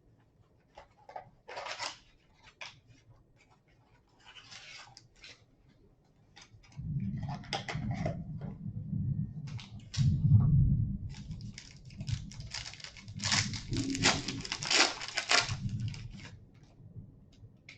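Plastic overwrap crinkling and tearing as it is pulled off a trading-card box, with scattered crackles at first, then denser rustling and handling of the box.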